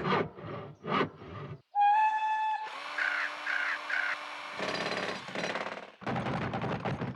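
A run of cartoon sound effects: short pitched blips, then a held whistle-like tone about two seconds in, then a long stretch of rattling, machine-like noise.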